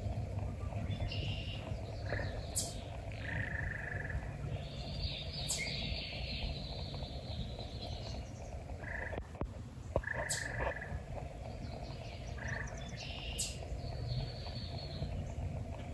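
Wild birds singing and calling. A short call repeats every few seconds, with higher warbled phrases and a few sharp, very high notes between, over a steady low outdoor background.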